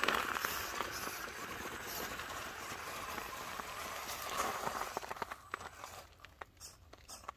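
Axial Capra 4WS RC rock crawler's electric motor and geared drivetrain whirring as it crawls over rock, with tyres scrabbling on gravel; the whir stops about five seconds in, leaving faint scattered clicks and crunches.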